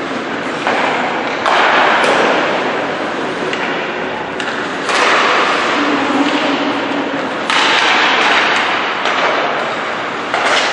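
Ice hockey play in an echoing rink: several sudden thuds of the puck and players against the boards, each trailing off in reverberation, over a steady scrape of skates on the ice.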